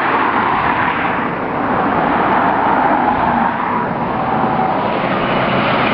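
Police car driving past with steady engine and road noise, its siren already switched off.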